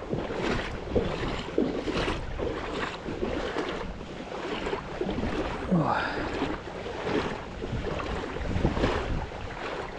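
Water sloshing and splashing around the legs with each step of wading through shallow river water, with wind noise on the microphone.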